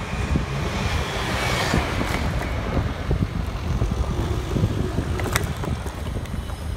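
Wind buffeting the microphone of a bicycle-riding vlogger, a steady gusting rumble over street traffic noise. A hiss swells and fades about a second and a half in, and a sharp click comes a little past five seconds.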